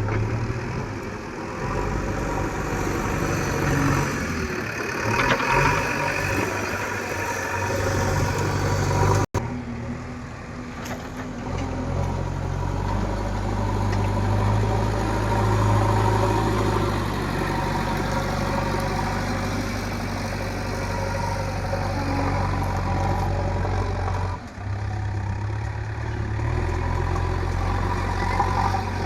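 JCB digger's diesel engine running while digging soil, with a momentary break in the sound about nine seconds in.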